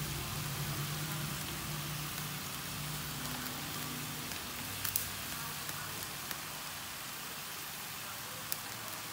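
Steady sizzling hiss from a frying pan of meat on a gas burner as water is poured in and it simmers, with a few light taps of chopsticks against the pan.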